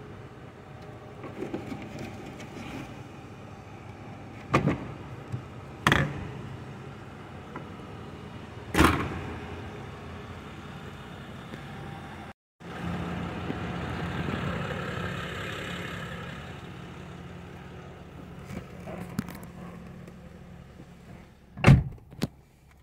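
Several sharp thumps and knocks as a Mercedes E320 sedan's trunk and doors are handled, the loudest near the end as a car door shuts. After a brief cut about halfway through there is a steady low hum.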